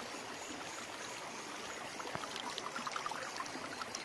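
Steady rush of a flowing stream, with small high ticks and splashes dotted through it from about two seconds in.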